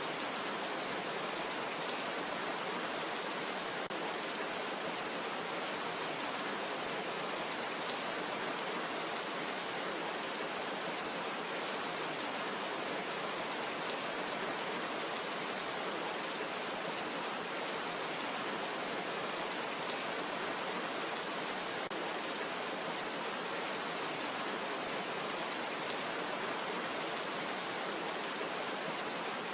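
Steady rain, an even hiss with fine patter of drops that holds constant.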